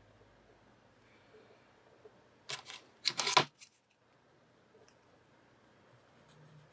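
Hands handling small hobby tools and parts on a workbench: two short scuffs about two and a half and three seconds in, the second louder, over low room noise.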